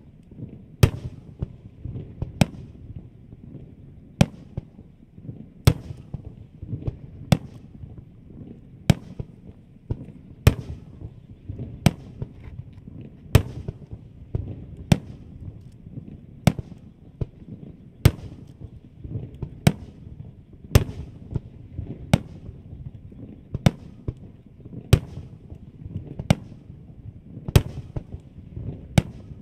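Fireworks shells bursting overhead in a steady series, a sharp bang about every second and a half, each followed by a low rumbling echo.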